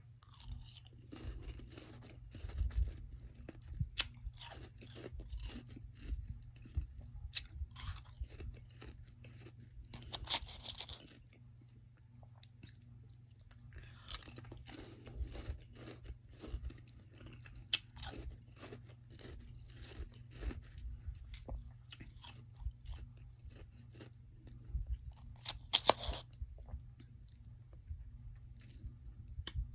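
Close-up chewing and crunching of soft freezer frost: many short crunches with a few longer bouts of crunching. A steady low hum sits underneath.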